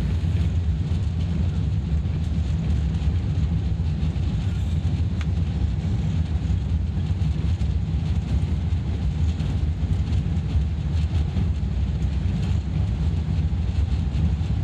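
Steady low rumble inside the cabin of an Airbus A380 rolling along the runway on its landing roll, with no distinct knocks or changes.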